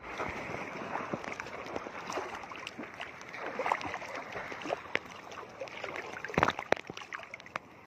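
Sea water sloshing and splashing right at the microphone as small waves wash past a camera held at the surface, with many little splashes and a louder splash about six and a half seconds in.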